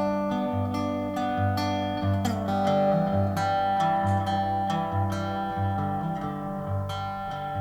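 Background music led by plucked acoustic guitar over a pulsing bass line.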